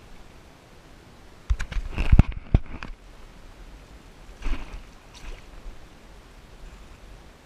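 A hooked fish splashing and thrashing at the water's surface as it is landed by hand: a cluster of splashes and sharp knocks about two seconds in, then another splash a few seconds later.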